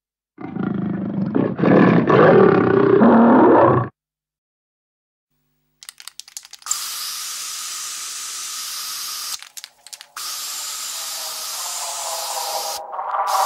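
A gorilla roar sound effect lasting about three and a half seconds. After a pause come a few clicks and then a long, steady spray-paint hiss from an aerosol can, broken once briefly, with music starting near the end.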